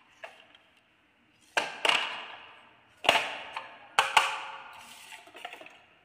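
Hard plastic knocks and clatter from a toy dump truck being handled and set down: five sharp clacks, the first two close together and the last two close together, each ringing out briefly.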